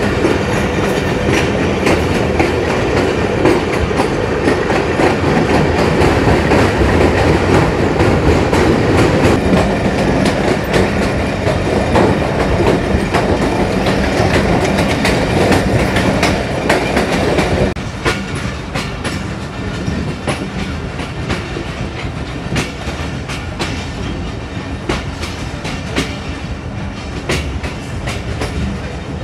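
Passenger train running at speed, heard from an open coach doorway: a steady rumble with wheels clattering over the rails. The sound drops noticeably about two-thirds of the way through.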